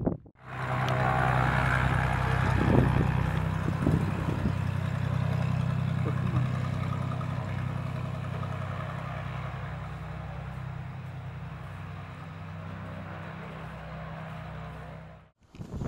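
Single-engine propeller aircraft's piston engine running with a steady drone that slowly fades, as of the Mooney M20K moving away.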